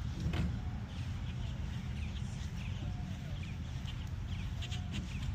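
Birds calling: quick high chirps throughout, and a lower call that rises and falls, heard about three times, over a steady low rumble.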